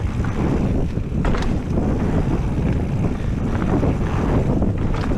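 Mountain bike riding fast down a dirt trail: wind buffeting the action-camera microphone over a steady rumble of tyres on the dirt, with a few sharp knocks and rattles as the bike hits bumps.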